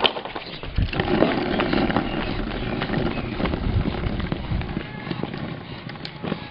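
Skateboard wheels rolling over asphalt under a pug, a rough crackling rumble that builds about a second in and eases off near the end. A single sharp clack right at the start.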